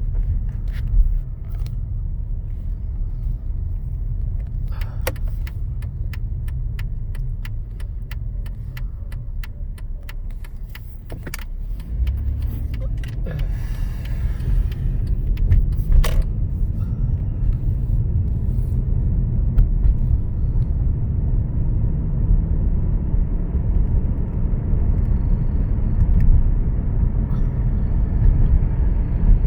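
2013 Mercedes-Benz E350 4Matic with the M276 V6 on the move: a steady low rumble that gets louder about twelve seconds in, with a run of light ticks before that. It carries the noise the owner is chasing, which new idler pulleys, a new serpentine belt and a new tensioner pulley have reduced but not cured.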